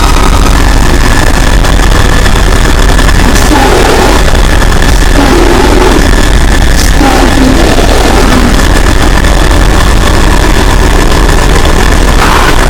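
Mock Emergency Alert System alarm boosted until it clips continuously: a steady high electronic tone over a harsh, distorted roar, with lower tones breaking in twice.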